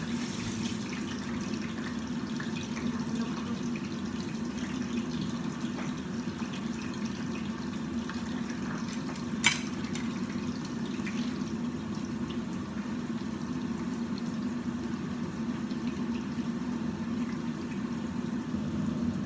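Steady water sound in a kitchen, with one sharp click about nine and a half seconds in.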